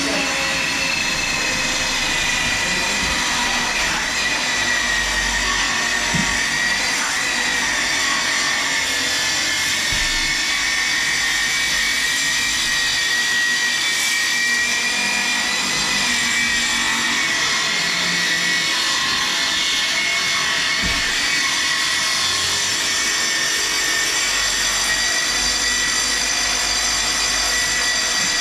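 Festool track saw and its connected dust-extraction vacuum running steadily with a high motor whine while cutting plywood.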